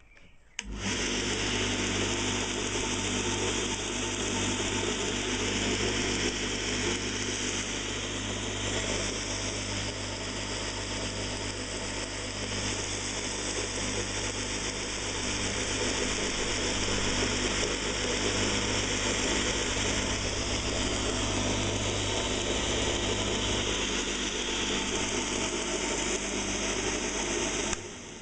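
Homemade belt sander, an electric motor driving an abrasive belt over a grinding-wheel pulley, switched on about half a second in and running with a steady hum and whir, then switched off shortly before the end.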